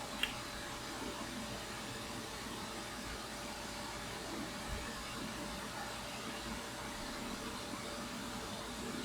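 Steady machine hum, with one faint click about a quarter second in.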